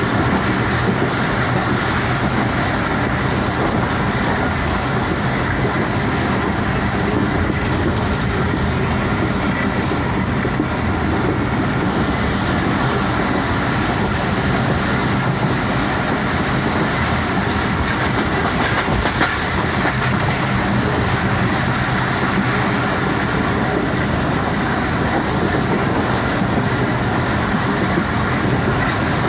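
Rehman Baba Express passenger train running at speed, heard from aboard a coach: a steady, unbroken rumble of the wheels and carriage on the track.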